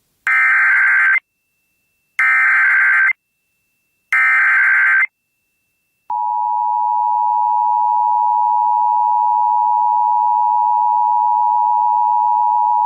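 Emergency Alert System alert opening: three short bursts of SAME digital header data about two seconds apart, then the steady two-tone EAS attention signal starting about six seconds in, heralding a National Weather Service severe thunderstorm warning.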